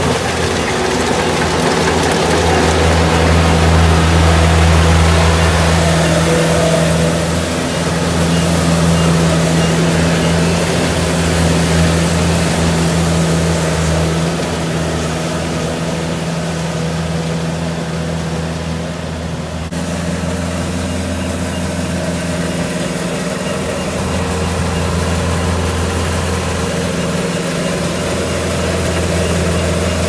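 Kubota DC70 combine harvester's diesel engine running steadily at a constant speed, with a slight swell and ease in level.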